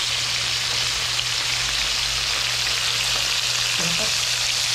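Small whole fish shallow-frying in hot oil in a pan, a steady, dense sizzle.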